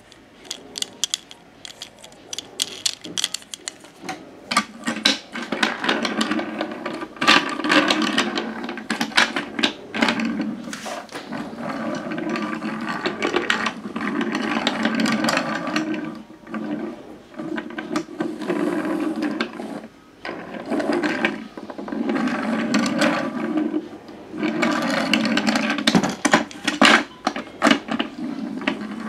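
Fisher-Price Thomas Wooden Railway engines pushed by hand along a wooden track: wooden wheels rumbling and rattling on the wood, with many clicks and clacks. The rolling comes in spells of a few seconds, broken by short pauses.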